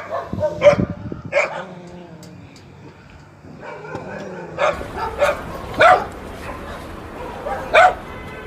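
A dog barking, a few short barks at a time with pauses between them.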